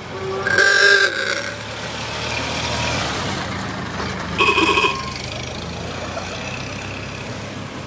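Vintage cars' engines running as the cars pull away, with two short, loud horn toots, about a second in and again about four and a half seconds in.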